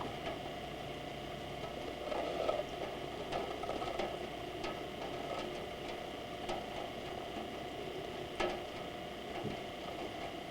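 Rain falling steadily, with scattered louder drops striking close by, over a steady hum.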